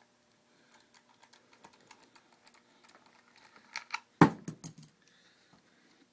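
Small metal clicks and taps as a scooter mirror is fitted and tightened down with a 14mm wrench, about four or five a second. They are followed by a louder cluster a little after four seconds, with one sharp knock as the wrench or tool is set down against the part.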